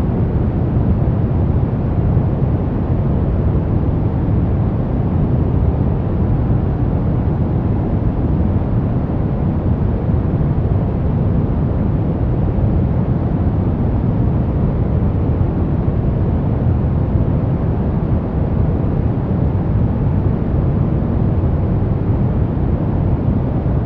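Steady brown noise: a deep, even rushing hiss weighted toward the low end, with no changes.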